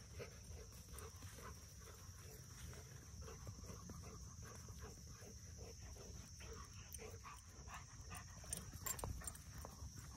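Dog panting softly in a quick, even rhythm, about two to three breaths a second, over a steady high hiss, with a few light ticks near the end.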